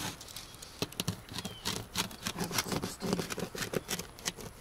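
Hand-cutting of trim material, a rapid irregular run of clicks and snips.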